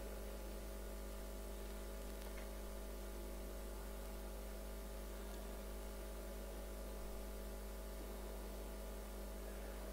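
Steady electrical mains hum: a constant low drone with several steady tones above it, unchanging throughout.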